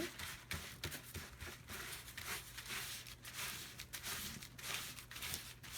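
Paper rustling and crinkling in irregular rustles and scrapes as paper scraps are handled and cleared up.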